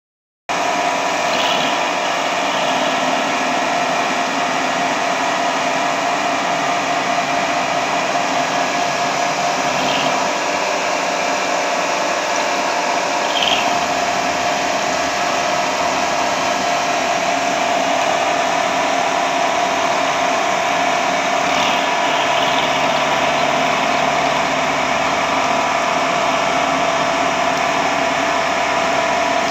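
CNC milling machine spindle driving an end mill through a round metal workpiece under flood coolant, with a constant whine and a steady hiss of cutting.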